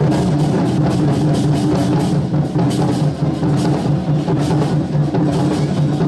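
Ensemble of large red Chinese barrel drums (war drums) beaten with wooden sticks in fast, steady drumming, with hand cymbals clashing along.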